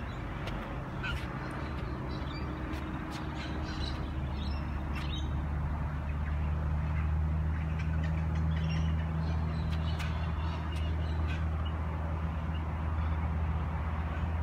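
A tennis ball tapping again and again off the frame of a tennis racquet, about one or two sharp clicks a second, over a steady low drone that grows a little louder about six seconds in.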